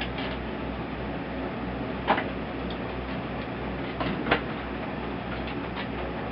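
A few sharp knocks and clicks from hand work on a wooden bird feeder as its old roof is taken off, the loudest about four seconds in. Under them runs a steady low pulsing hum.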